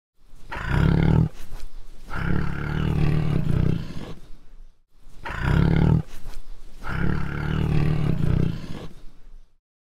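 Bengal tiger roaring: a short roar followed by a longer one, and the same pair again after a brief pause near the middle.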